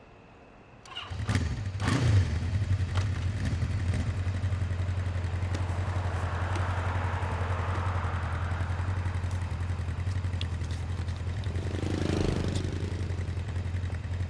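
Motorcycle engine starting about a second in, then idling steadily.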